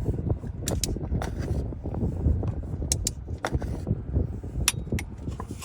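Torque wrench and socket working the crankshaft pulley bolts: several sharp metallic clicks scattered over a low, uneven rumble.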